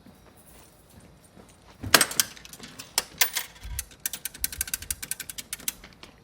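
Payphone being used: a metallic clatter about two seconds in, then a quick run of sharp clicks and rattles of coins and handset.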